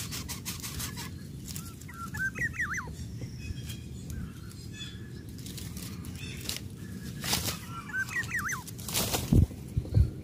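Dry palm fronds and nest material rustling as an adult greater coucal shifts about on its nest, then a few loud flapping thumps near the end as it leaves. A short warbling bird call sounds twice, about two seconds in and again about eight seconds in.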